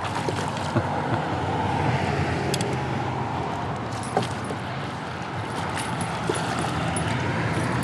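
Steady road noise from interstate traffic, with a few faint clicks over it.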